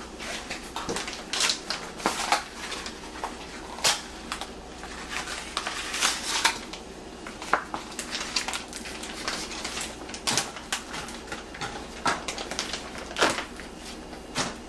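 Irregular clicks, taps and crinkles of kitchen handling as cheese is spread on pizza dough: packaging and a pan or bowl being handled.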